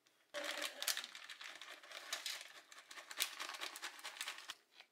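Plastic bag of grated cheese crinkling and rustling as it is handled and shaken out over a pizza. The crackling starts about a third of a second in and stops shortly before the end.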